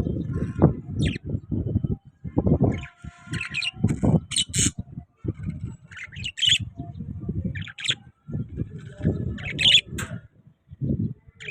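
Pet parrots chirping and squawking in short, high calls, about a dozen scattered through the clip, over a continuous low, irregular bumping rumble.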